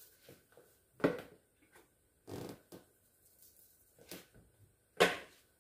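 Italian seasoning shaken from a spice shaker bottle onto raw chicken in about five short shakes, the last one the loudest.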